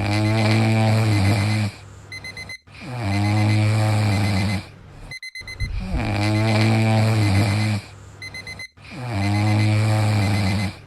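Snoring sound effect looped four times, each long snore about two seconds, with a rapid faint beeping between the snores.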